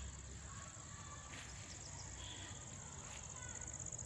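Insects chirring in a steady, high-pitched drone, picked up by a smartphone's built-in microphone.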